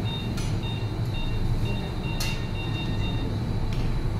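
Operating-theatre background: a steady low hum with short, high electronic beeps from the theatre equipment repeating at two pitches, and a few sharp clicks of surgical instruments, the loudest about two seconds in.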